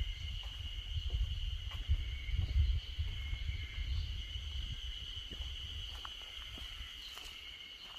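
Insects chirring in a steady, unbroken high drone, over a low rumble that eases off in the second half.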